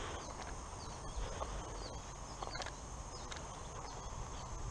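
Footsteps of a person walking through grass, soft irregular steps.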